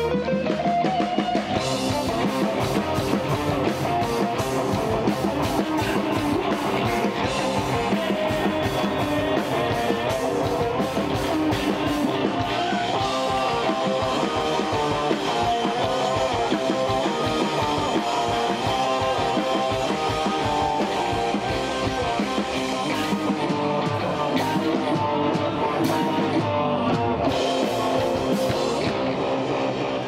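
Rock band playing live: electric guitar and bass guitar over a drum kit.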